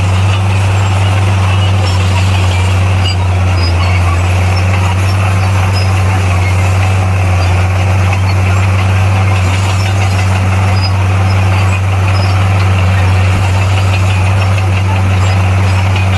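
Bulldozer's diesel engine running steadily with a loud, constant low drone and no change in pitch.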